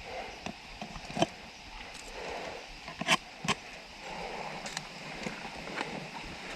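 Hand-handling noises from fitting a saddle onto a PVC water pipe: a scattering of sharp clicks and knocks, the loudest two close together about three seconds in, over low scraping and rustling.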